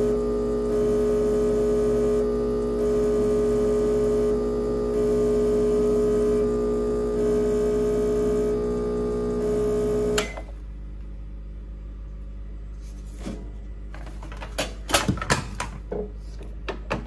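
Rancilio Silvia espresso machine's vibratory pump humming steadily while pulling a shot, cutting off about ten seconds in with a sharp click. Then a few clicks and knocks near the end as the portafilter is handled.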